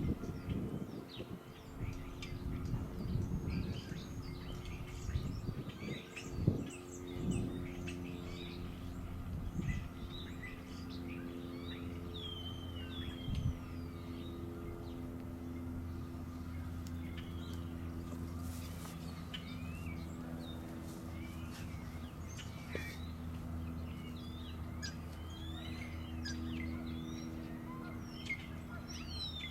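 Small songbirds chirping and singing repeatedly over a steady low hum. There is some irregular low rumbling during the first several seconds.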